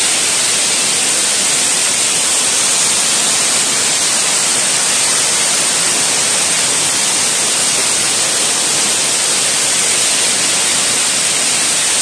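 A 50-metre two-tier mountain waterfall rushing close by. It is a loud, steady hiss of falling water that does not change.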